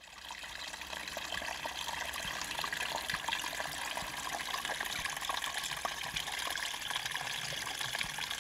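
Running water, a small stream trickling steadily, fading in over the first second.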